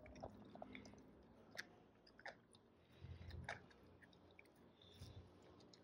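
A dog chewing a whole raw rabbit: faint wet chewing with a handful of short, sharp crunches.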